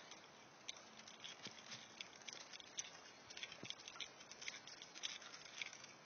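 Faint, irregular light crackles and ticks of footsteps on a dry, leaf-littered trail.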